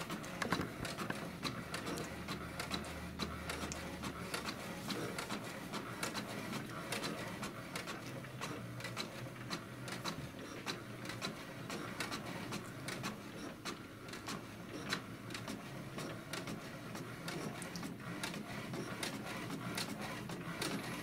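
HP DeskJet 2130 inkjet all-in-one printing a copy: the print carriage shuttles back and forth with rapid clicking as the sheet feeds through. A low motor hum runs for about two seconds near the start.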